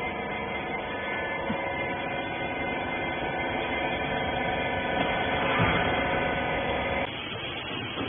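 Steady electric hum with several steady tones, from the rags baler's hydraulic power unit running. It cuts off suddenly about seven seconds in.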